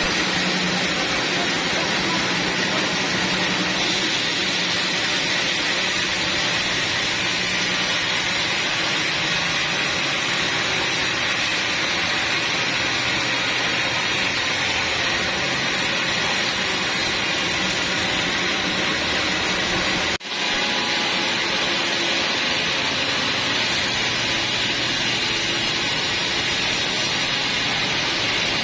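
Sawmill saw running steadily, a constant loud mechanical whir with a faint low hum, cut by a brief dropout about 20 seconds in.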